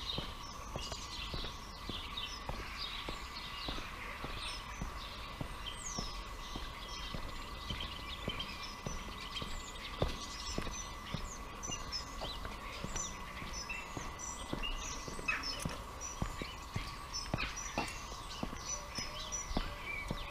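Small birds chirping and twittering all through, over footsteps on a paved pavement at a walking pace of about two steps a second. A steady thin tone hums faintly underneath.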